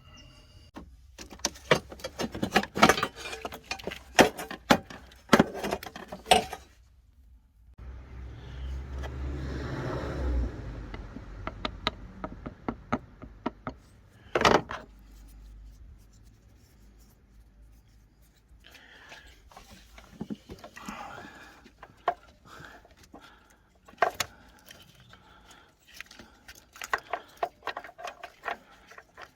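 Hand tools and small metal parts clinking and jingling in bursts of sharp clicks while the common-rail pressure regulator is being worked on. There is a few seconds of rushing noise about a third of the way in, and one loud knock near the middle.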